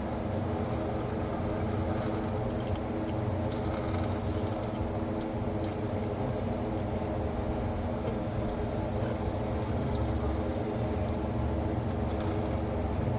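Engine oil trickling from the loosened oil filter housing into a drain bucket, letting the housing empty before it comes off. A steady low hum runs underneath.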